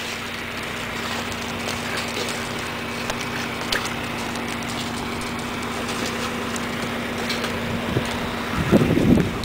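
A horse cantering loose on a wood-chip floor: soft hoofbeats over a steady outdoor hiss and a low steady hum, with heavier hoof thuds near the end as the horse passes close.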